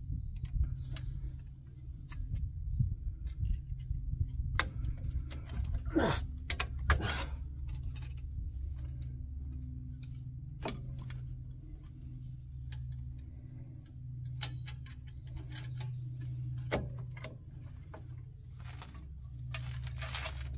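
Scattered metallic clinks and clicks of tools and drum-brake hardware as tight brake-shoe springs are worked into place, loudest around six to seven seconds in, over a steady low hum.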